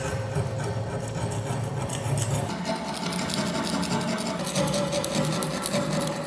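Hand scraper scraping caked rust and dirt off an old steel kukri blade: a dense run of short, gritty scratches as the crust breaks away.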